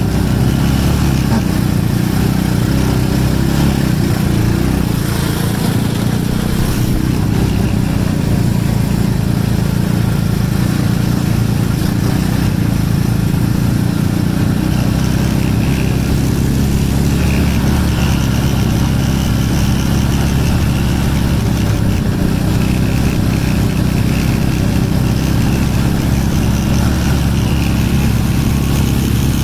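A 125cc Coolster mini Jeep's small single-cylinder engine running steadily at an even speed while the mini Jeep drives, heard close up.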